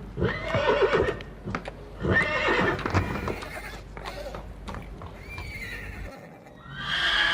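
Horse neighing: two loud neighs in the first three seconds and a fainter one about five seconds in, with a few hoof clops. A different steady sound comes in near the end.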